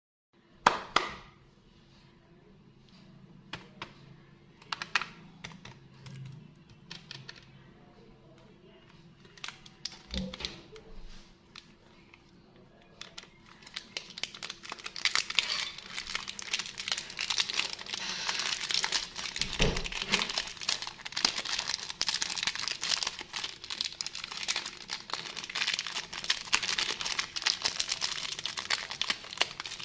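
Plastic wrapper of a Yupi Burger gummy candy being handled and pulled open by hand. A few scattered rustles and taps come first; after about thirteen seconds it becomes continuous close-up crinkling.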